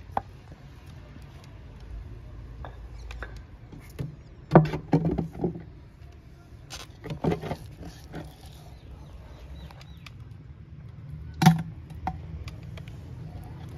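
Scattered sharp knocks and taps in irregular clusters as crushed garlic is dropped from a wooden mortar into a plastic tub of water, with one loud knock near the end.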